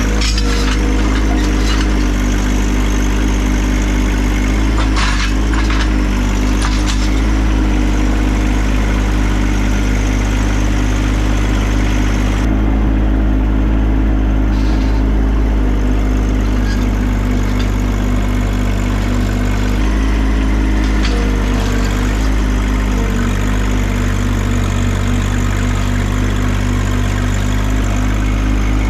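John Deere 2025R compact tractor's three-cylinder diesel engine running steadily, its pitch shifting slightly a couple of times, with a few sharp knocks.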